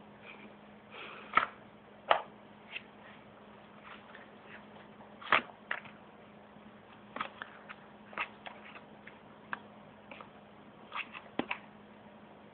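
Light clicks and knocks, about a dozen, at irregular intervals over a faint steady low hum.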